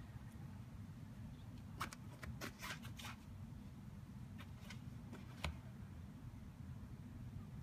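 Cats shifting about inside a fabric pop-up cat tent: soft scratchy rustles and light ticks of paws and fur against the nylon, a cluster about two to three seconds in and a few more around five seconds, over a low steady hum.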